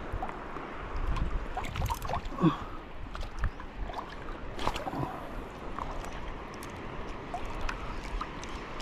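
Shallow water sloshing and gurgling, with scattered small clicks and knocks through it.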